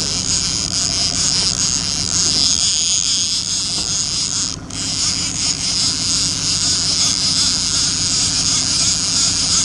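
60 hp outboard motor running steadily at trolling speed, a continuous hum with a faint high whine, dipping briefly about halfway through.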